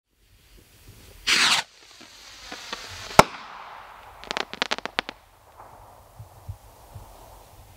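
Firework rocket from the Red Rhino Going Supernova pack: a short whoosh as it launches, a single sharp bang as it bursts about two seconds later, then a quick run of crackles from the stars.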